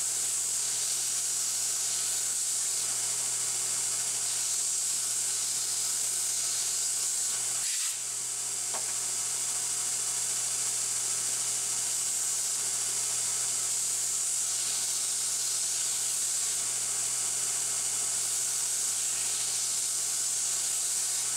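Belt grinder running steadily while small metal spacer slugs are pressed against the abrasive belt to grind off the bandsaw burr, with a brief dip in the noise about eight seconds in.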